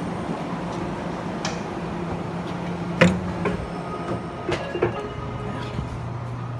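Steady electric hum of a Puyuma Express (TEMU2000) tilting train standing at the platform, with a sharp knock about three seconds in and a few lighter clunks after as someone steps aboard into its vestibule. A lower, steady hum takes over near the end, heard from inside the car.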